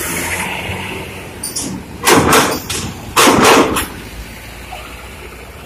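A bus's diesel engine idling, with two loud hissing bursts of compressed air about a second apart from the bus's air system.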